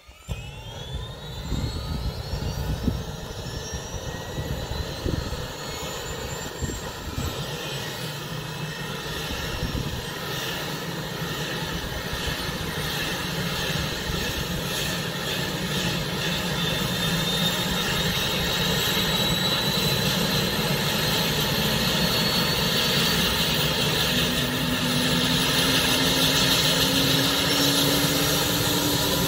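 Airbus H145 D3 rescue helicopter's twin turboshaft engines running on the ground, a turbine whine with several tones rising in pitch as the engines spool up. The sound grows slowly louder, with a high whine climbing past the middle and a lower tone rising near the end.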